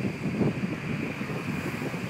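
Wind buffeting the microphone in uneven low gusts, strongest about half a second in, over a steady background hiss.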